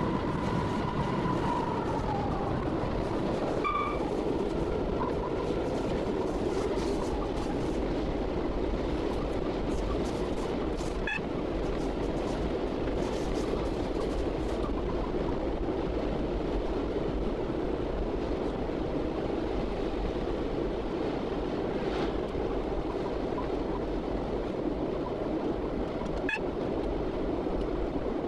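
Class 66 diesel locomotive heard from its cab at speed: its two-stroke V12 diesel engine running steadily under power together with wheel-on-rail noise. A high whine near the start sags and fades about two seconds in, and a few isolated sharp clicks stand out from the steady din.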